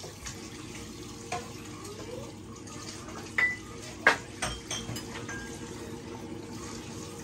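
Dishes and cutlery being handled and set down during clearing up: a few sharp clinks, the loudest about four seconds in, one with a brief ring, over a steady background hiss.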